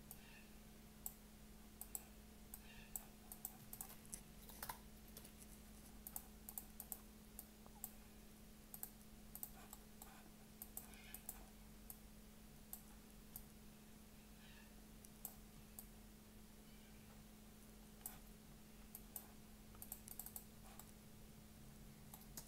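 Faint, scattered clicks of a computer mouse and keyboard, a few every couple of seconds, over a steady low hum.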